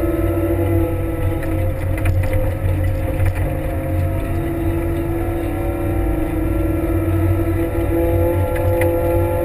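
Kramer 380 compact wheel loader's diesel engine running steadily under load while its front plow pushes snow, with a steady whine over the low engine rumble.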